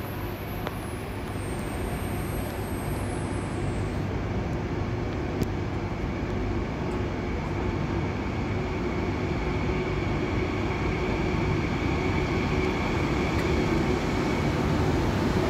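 Iryo Frecciarossa 1000 electric high-speed train arriving at a platform at low speed. A low rumble grows steadily louder as it approaches, and a steady high whine comes in about halfway and holds as the nose passes.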